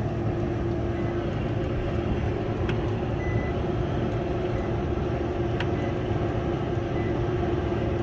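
Rooftop packaged air-conditioning unit running: a steady machine hum with a constant mid-pitched tone, and a few faint short high beeps.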